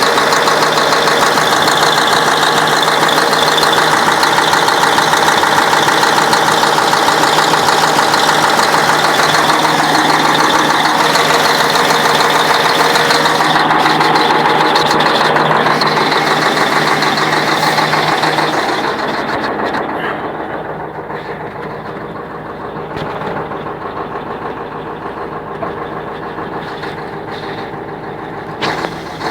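YaMZ-6581.10 diesel engine running, with a knock that the owner can't explain. About two-thirds of the way through the sound becomes quieter and more muffled.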